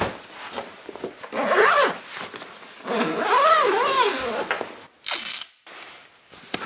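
Zipper of a soft guitar gig bag being pulled shut around an acoustic guitar, in several strokes whose pitch rises and falls with the pull. The two long pulls come about a second and a half in and about three seconds in, then a quick short pull near the end, with the bag's fabric rustling between them.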